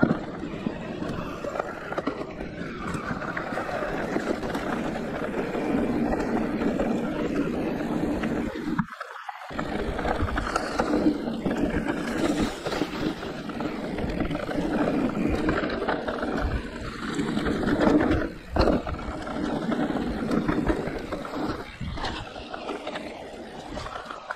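Giant Reign E+ enduro e-mountain bike riding a trail: steady rolling noise of the tyres over the ground, dropping out briefly about nine seconds in.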